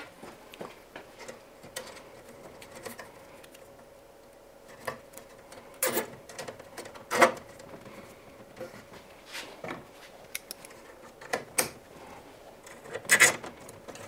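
Light, scattered clicks and small knocks of hands handling plastic-sheathed wiring and fastening a plastic cable tie around it on a tumble dryer, with a denser run of clicks near the end.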